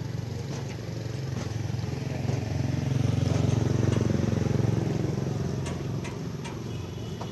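A motor vehicle's engine passing, swelling to its loudest about four seconds in and then fading.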